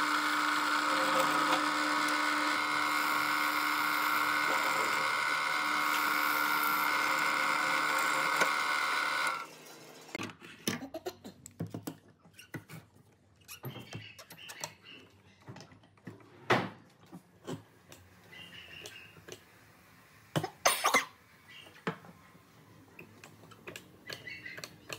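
Bench drill press running with its bit boring into a wooden table leg: a steady motor whine with cutting noise that stops abruptly about nine seconds in. After that come sparse, quiet knocks and clicks as the wooden leg is handled and clamped down on a workbench.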